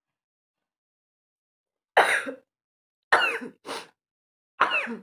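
A woman sneezing four times in quick succession, sharp explosive bursts with a voiced edge. The first comes about two seconds in and the last near the end: a sneezing fit.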